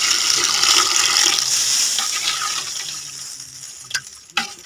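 Water being poured in a steady stream into a pot of thick masala, adding water for a gravy; the pour is loud at first and fades away over the last couple of seconds, with a couple of brief clicks near the end.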